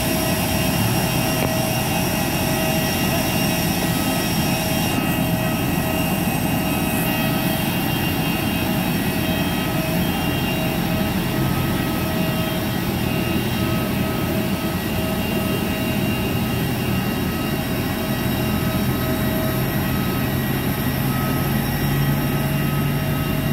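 Steady, loud turbine whine from a parked Airbus A320, several constant tones over a hiss, running without change. A lower engine drone from the pushback tug grows louder near the end.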